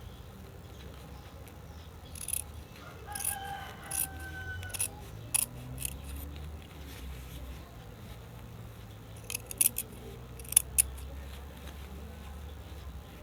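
Scissors snipping through cloth in short, sharp cuts: about five spaced snips in the first half, then a quicker run of four or five louder ones a little later.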